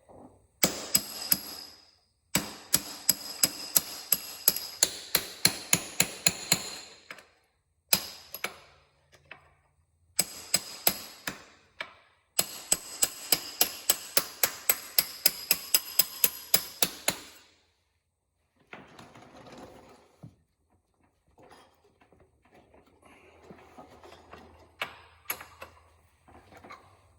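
Hammer blows, about three a second in several runs with short pauses, each strike ringing, knocking a wheel bearing out of a motorcycle wheel hub. Near the end a few lighter knocks and handling sounds.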